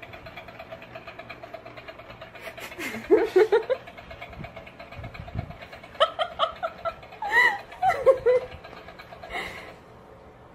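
Small motor of a battery-powered crawling-hand toy running with a steady fast ticking, about six clicks a second. A person laughs over it a few times.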